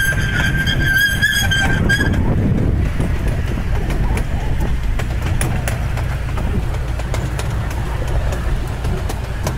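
Miniature park train's open riding cars rolling along narrow-gauge track: a steady low rumble with scattered clicks of the wheels on the rails. A thin, high held tone sounds over it and stops about two seconds in.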